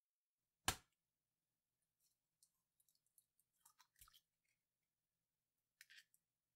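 An egg cracked sharply on a hard edge, followed by small crackles of the shell being pulled apart and a soft plop as the egg drops into a glass bowl about four seconds in, then a few more faint shell crackles.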